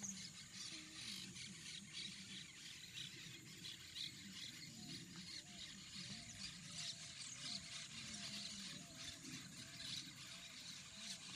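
Faint birdsong: small birds chirping, and a run of short repeated calls, about two a second, through the middle stretch.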